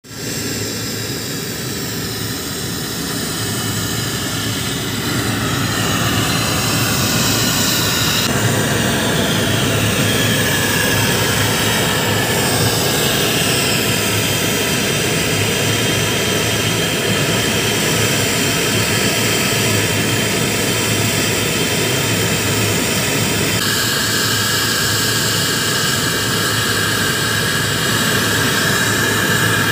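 Handheld gas brazing torch burning with a steady hiss while heating a copper pipe joint. The sound changes abruptly in tone a few times.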